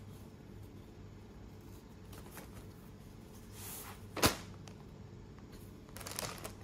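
Quiet handling of a cloth drawstring dust bag as a pair of home slippers is pulled out of it, with one sharp slap or knock a little past four seconds in.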